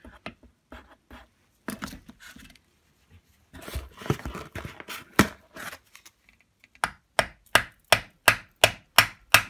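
Scraping and clicking of a screwdriver worked into an old rubber shaft oil seal in a metal casting. From about seven seconds in comes an even run of sharp taps, about three a second, as the screwdriver is tapped to drive it under the seal's lip and lift the seal out.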